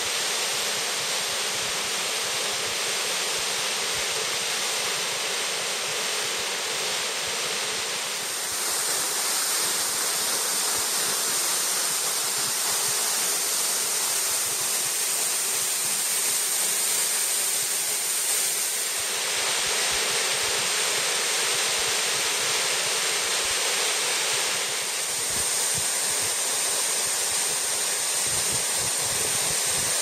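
Waterfall rushing steadily as water pours down a cliff half-frozen into huge icicles. The rush shifts slightly in tone a few times.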